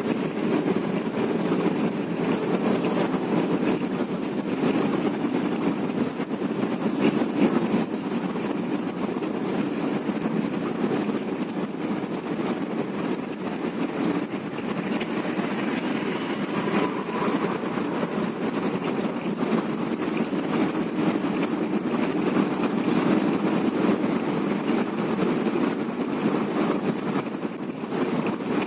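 Bus on the move: a steady engine and road rumble with light rattling.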